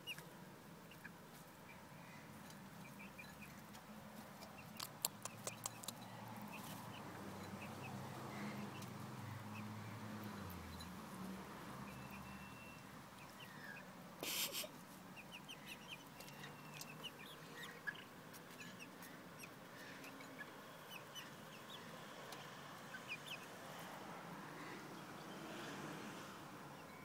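Young chickens softly cheeping and clucking, with scattered short clicks and a brief louder noisy burst about halfway through.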